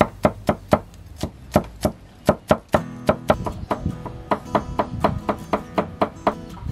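Heavy cleaver chopping garlic on a thick round wooden chopping block: quick, even knocks about four a second, with background acoustic guitar music underneath.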